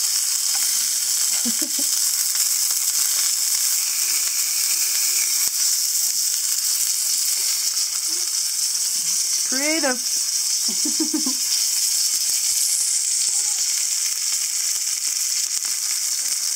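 Sirloin steak frying in a hot pan, a steady sizzle with no break. A short voice sound rises and falls about ten seconds in.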